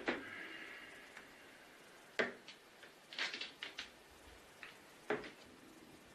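Ceramic teacups and a tray being set down on a wooden table: light clinks and knocks, the loudest right at the start with a short ring, then single knocks about two and five seconds in and a quick cluster around three seconds in.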